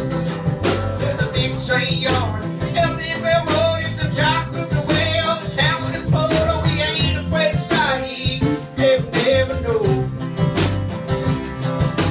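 Live country-rock band playing: two strummed acoustic guitars over an electric bass and a drum kit, with a steady beat.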